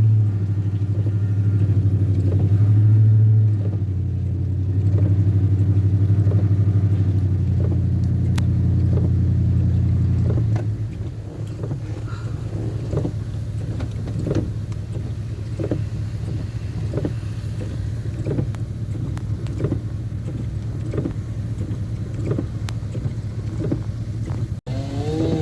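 A vehicle's engine working hard for about ten seconds as it drags a fallen tree, then dropping back to a lower, steady idle with a faint tick about once a second.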